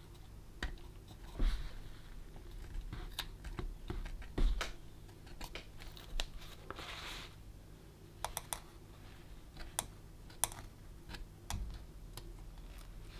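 Hands working small plastic radio parts and double-sided tape: scattered light clicks and taps, with a short scratchy rustle about seven seconds in.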